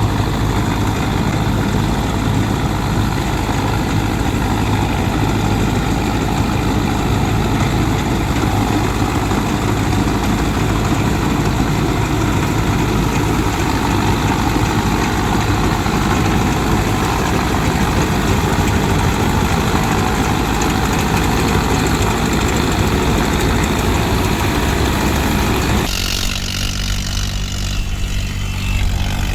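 Farm machinery's diesel engine running steadily under load. About 26 s in, the sound cuts abruptly to a different, steadier engine hum with a clear low drone.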